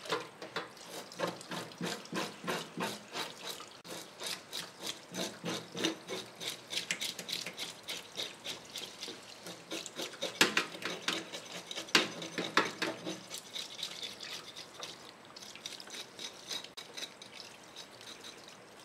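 Fish scales being scraped off an arakabu (marbled rockfish) with a hand scaling tool: quick rasping strokes, several a second, over the steady splash of tap water running onto the fish in a stainless steel sink.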